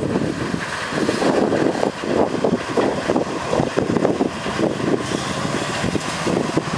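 Empty wagons of a cane train rattling and clattering over the rails as they roll past. A car engine runs alongside.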